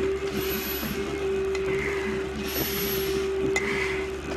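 A firefighter breathing hard through an SCBA facepiece regulator while climbing, two full breaths. Each inhale is a hiss with a thin high whistle, and each exhale begins with a click and a shorter rush of air. A steady machine hum runs underneath.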